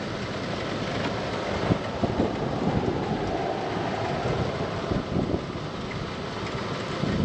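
Wind blowing across the microphone: a steady rush with uneven low buffeting.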